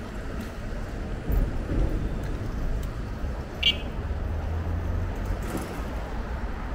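Street traffic heard from a moving electric bike: a steady low rumble of vehicles, swelling as traffic passes, with one short high beep about three and a half seconds in.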